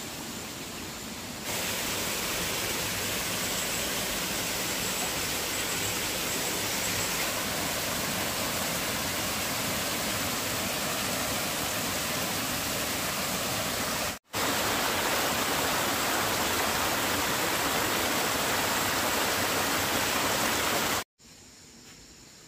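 Steady rushing noise spread evenly from low to high pitches; it steps up louder about a second and a half in, breaks off for an instant near fourteen seconds, and drops abruptly to a much quieter hiss near the end.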